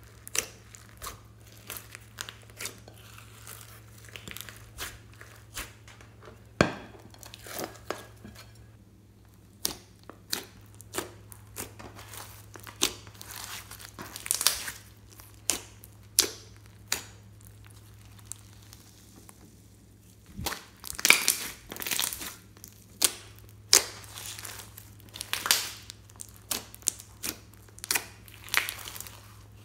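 Floam slime, thick with foam beads and glitter, being kneaded and squeezed by hand: irregular crackling and popping, with clusters of louder pops in the second half.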